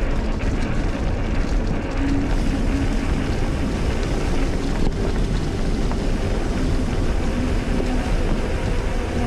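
Steady wind rush and rumble on the microphone of a bicycle-mounted camera riding along a leaf-strewn gravel trail, with the tyres rolling over the track.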